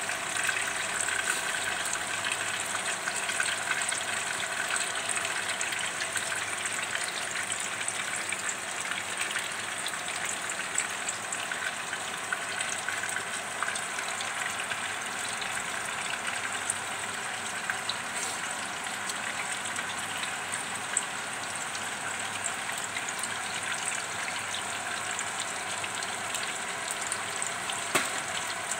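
Hot oil sizzling steadily around two whole mujair tilapia dry-frying in a nonstick wok, with small crackles throughout and a few sharper pops near the end.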